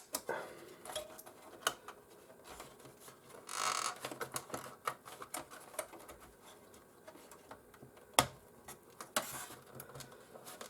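Irregular small clicks, taps and scrapes of plastic and metal parts of a PlayStation 4 console being handled and unplugged during disassembly, with a brief scraping rustle about three and a half seconds in and a sharp click about eight seconds in.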